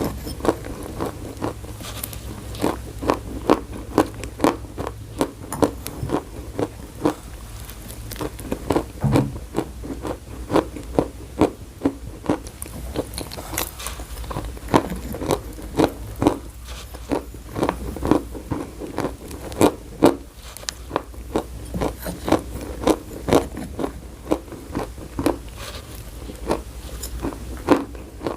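Close-miked crunching and chewing of chalk, with sharp irregular crunches a few times a second over a low steady hum.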